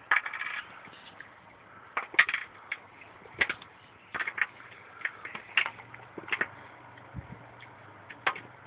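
Chocolate orange segments being snapped apart by hand and chewed quickly: an irregular run of sharp snaps, clicks and crackles.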